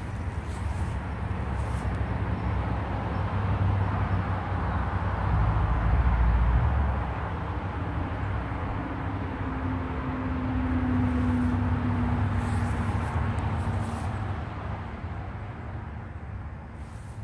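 Road traffic passing: a low rumble that swells twice and then fades, with an engine hum near the middle.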